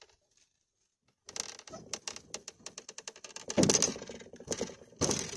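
Knocks, clunks and scuffing as a person climbs from a log into a loaded canoe and their weight shifts onto the hull. After about a second of quiet comes a quick run of clicks, with heavier thumps about midway and again near the end.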